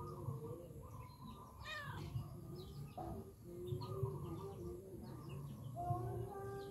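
Small birds chirping in short, scattered calls, over a faint wavering background hum.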